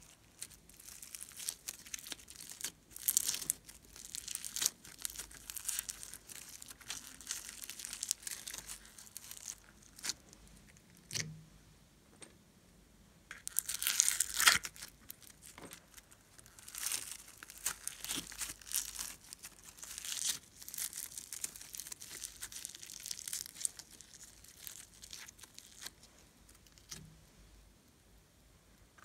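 Foam-bead slime (floam) squeezed and pressed by hand, giving irregular bursts of crackling as the tiny foam beads crunch against each other, with short pauses between handfuls.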